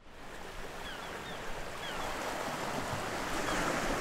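Sea washing against a rocky shore: a steady rush of surf that swells a little near the end, with a few short, high, falling chirps over it.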